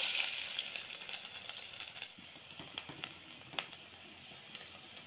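Chopped garlic dropped into hot coconut oil, sizzling loudly at once and then settling to a quieter, steady sizzle with scattered pops.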